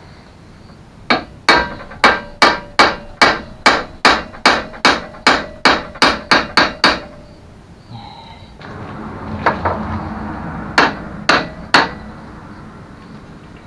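Hammer blows on the mobility scooter's rear hinge assembly during reassembly: a quick run of about sixteen strikes, roughly three a second, each with a short metallic ring. After a brief pause come three more strikes.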